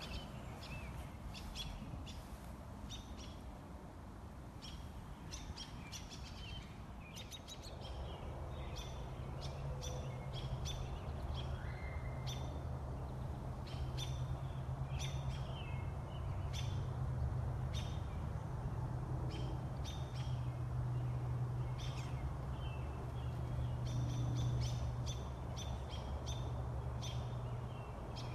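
Songbirds chirping and calling over and over, with a steady low hum coming in about eight seconds in and growing louder.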